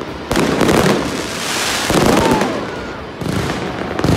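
Fireworks going off in quick succession: sharp bangs, one about a third of a second in and another a little past three seconds, with dense crackling from glitter shells between them.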